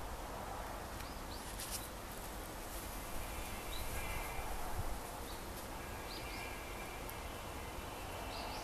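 Steady background hiss with a few short, high bird chirps scattered through it.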